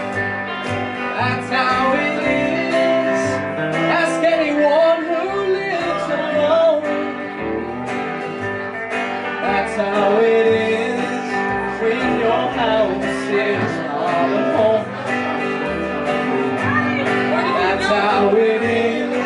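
Live country band playing: guitar over an upright bass, with the bass notes moving steadily underneath.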